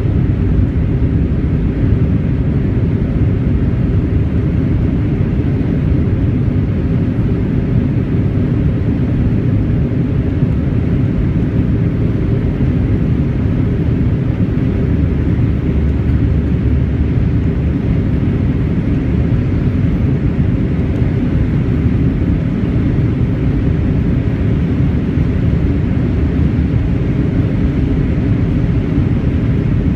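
Steady low rumble of an Airbus A320 jet airliner's engines after takeoff, even in loudness with no rise or fall in pitch.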